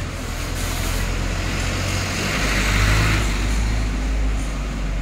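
Motor vehicle engine rumble, swelling as a vehicle passes about two and a half to three seconds in.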